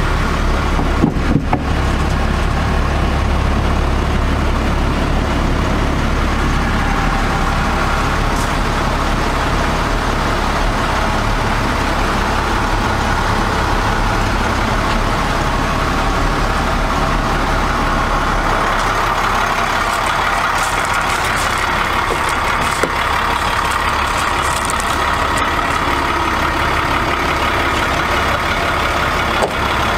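International DT466 diesel engine of a medium-duty truck idling steadily, with a few brief handling knocks about a second in.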